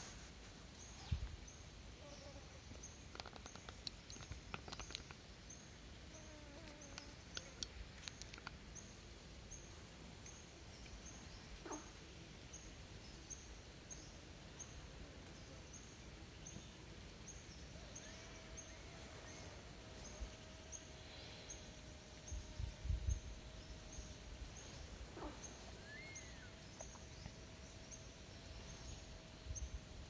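Faint outdoor wetland ambience with birds calling in the background: a few short gliding calls and, from about two-thirds of the way in, one long held note. Throughout, a high-pitched chirp repeats evenly about every 0.7 s, with scattered clicks and a few low thuds near the end.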